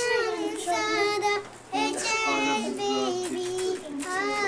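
A young girl singing a song in held, gliding notes, with a short break for breath about a second and a half in.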